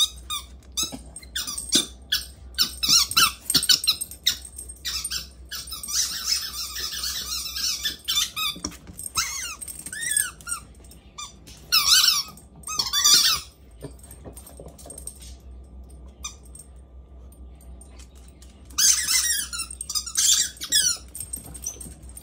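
Squeaky dog toys squeaking over and over as two puppies chew on them, in clusters of quick high squeaks with a quieter stretch about two-thirds of the way through.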